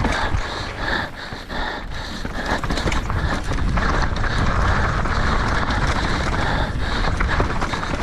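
A mountain biker panting hard in a steady rhythm of about two breaths a second, mid-race, over the constant rumble and scattered clicks and rattles of the bike on rough ground.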